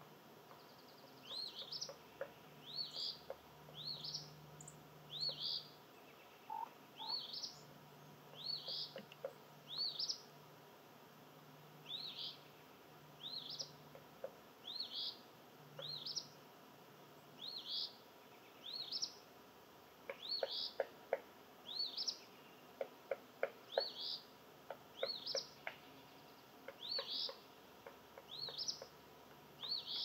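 A bird chirping: a short, high, upslurred chirp, often doubled, repeated about once a second. From about two-thirds of the way through, a quick run of sharp clicks joins in.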